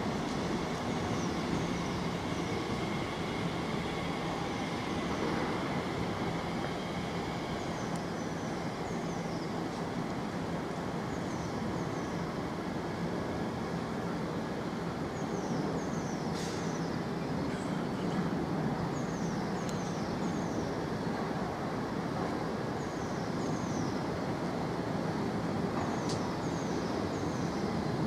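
TfL Rail Class 345 Aventra electric multiple unit pulling slowly out of the platform: a steady rumble of wheels on rail with the hum of its electric traction gear. Short high chirps recur over the top.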